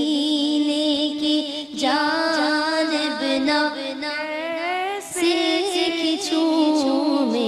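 A woman singing an Urdu naat, drawing out long, wavering, ornamented notes without clear words. Her voice breaks off briefly twice, a little under two seconds in and about five seconds in.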